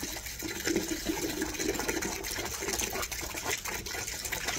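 Water poured from a plastic jug over a wet dog's head, splashing and pattering onto the concrete.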